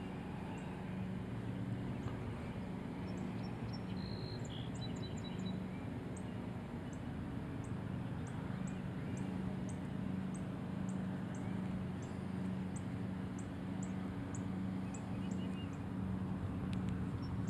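Outdoor ambience: a steady low hum under faint background noise, with a few short bird chirps and, from about four seconds in, a run of short, high ticks repeating roughly twice a second.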